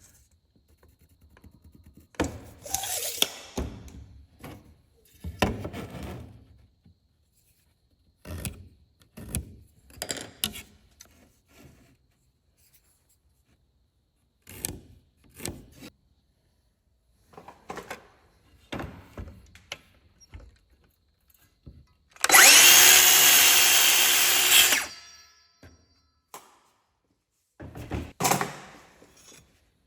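Scattered knocks and scrapes of a wooden strip being handled and marked, then, about 22 seconds in, a circular saw runs for about two and a half seconds, cutting through a wooden furring strip, and winds down.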